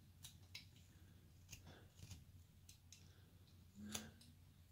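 Faint, scattered clicks and scrapes of a carving knife slicing small chips from a basswood figure, with one slightly louder click near the end.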